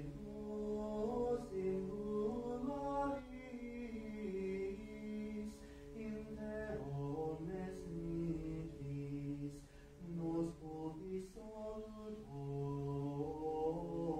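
Liturgical chant of the Vespers office: low voices sing long held notes that step from pitch to pitch, with more than one voice line at a time.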